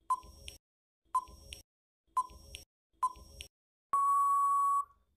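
Quiz countdown timer sound effect: a short beep about once a second, four times, then one long steady beep lasting about a second as the timer runs out.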